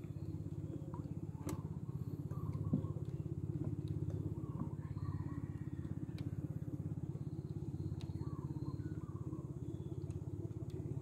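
Small boat engine running steadily with a fast, even putt-putt beat, with faint chirping over it.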